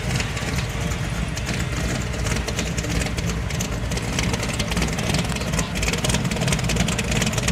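Modified 1969 Ford Mustang fastback's engine idling with a choppy, steadily pulsing exhaust as the car creeps forward at walking pace.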